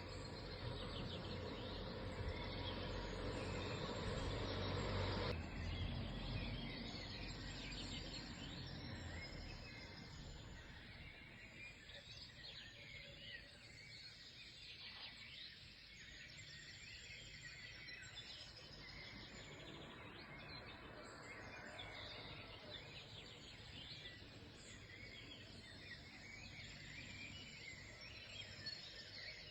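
Many small birds chirping and singing together over a steady background hiss. A low rumble underneath stops abruptly about five seconds in.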